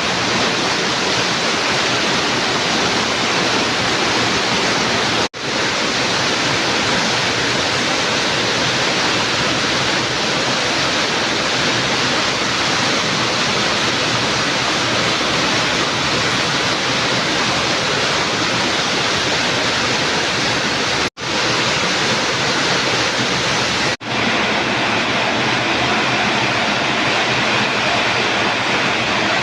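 Heavy rain pouring down, a steady dense hiss. It breaks off for an instant about 5, 21 and 24 seconds in.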